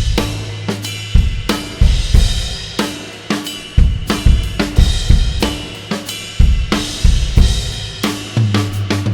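Drum kit played in a steady groove: kick and snare hits under the ringing wash of raw Turkish Pergamon cymbals, with hi-hat and cymbal strikes every half second or so.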